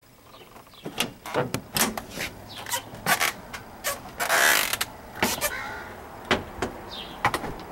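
A door being opened and gone through: a series of sharp clicks and knocks with creaking, and a half-second scraping rush about halfway through.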